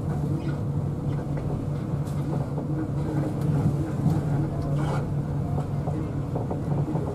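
Mercedes-Benz OH1526 bus's diesel engine heard from inside the cabin, running with a steady low hum as the bus crawls in a traffic queue, with a few light clicks and rattles.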